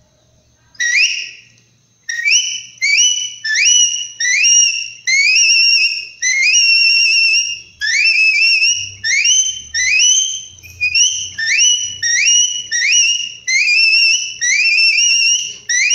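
Homemade bottle-cap capybara call blown to imitate a capybara pup lost from the herd, crying for its mother. One whistled note about a second in, then a fast run of about twenty more, each sliding up and then holding, a few held longer.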